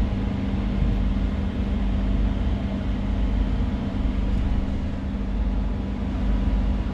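Doha Metro train heard from inside the front car: a steady electrical hum over a low rumble as it moves slowly along the platform.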